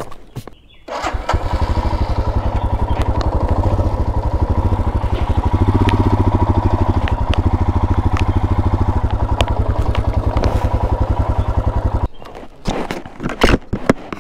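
Royal Enfield Himalayan's single-cylinder engine starts about a second in and idles with an even, rapid beat, swelling slightly around the middle, then is switched off abruptly near the end.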